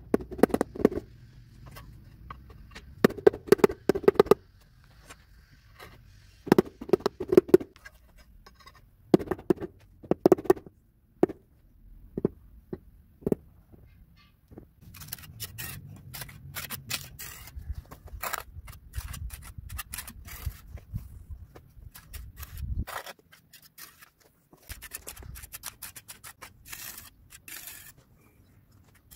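A rubber mallet tapping ceramic floor tiles down into fresh tile adhesive, in clusters of several quick knocks every few seconds. About halfway through, this gives way to a trowel scraping over mortar and concrete, a gritty rasp that stops briefly a few seconds before the end.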